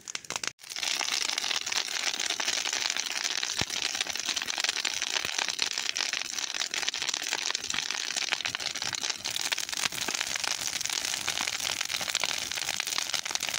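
A heap of cut twigs and leafy branches burning, with a dense, continuous crackling and popping as the fire takes hold through the pile. The sound cuts in about half a second in.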